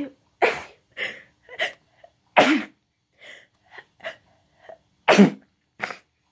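A woman sneezing repeatedly into her hoodie sleeve: three loud sneezes spread across a few seconds, with short fainter breaths and sniffs between them.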